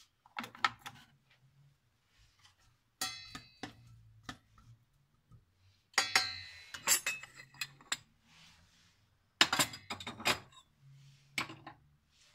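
A spoon clinking and scraping against a stainless steel saucepan as sliced onion is stirred in oil: a few sharp knocks that ring briefly, the loudest about six and nine and a half seconds in.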